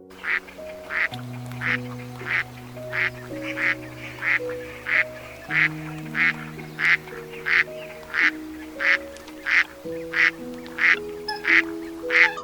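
A duck calling in a steady series of short quacks, about two a second, over background music.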